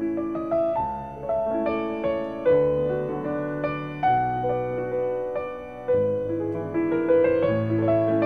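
Slow piano music: a melody of single struck notes, each fading, over lower chords.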